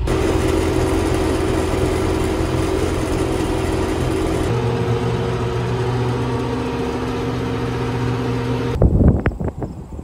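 Tractor engine running, heard from inside the cab as a steady drone while it drives across a field. Near the end, a few loud thumps.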